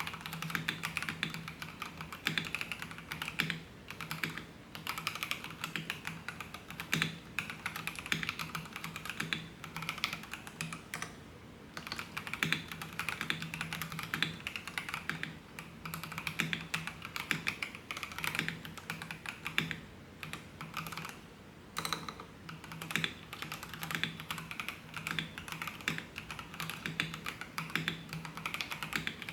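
Typing on an FL Esports FL750 mechanical keyboard: fast, continuous key clacks with a couple of brief pauses.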